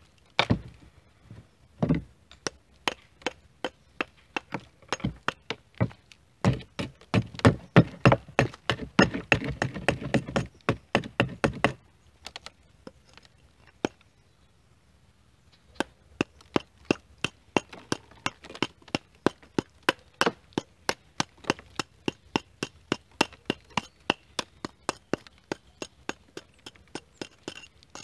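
Rapid sharp knocks of a steel-headed hand tool chipping old mortar off a reclaimed red brick. The strikes come thick and heavy for a few seconds, stop briefly about halfway through, then go on as steady tapping at about three to four a second.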